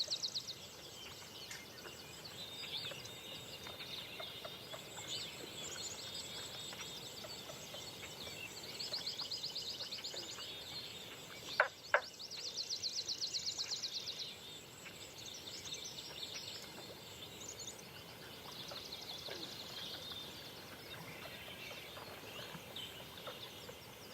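Birds singing at dawn: a songbird repeats a rapid high trill three times, each trill lasting about a second and a half, among scattered chirps. Two sharp clicks come close together about halfway through.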